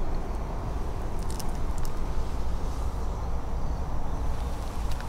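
Steady low rumbling noise on the camera's microphone, with a few brief clicks and crackles.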